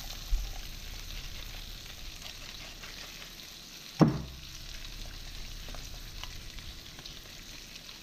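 Two whole rainbow trout frying in melted margarine in a pan, giving a steady sizzle. A sharp knock sounds about halfway through, with a smaller one just after the start.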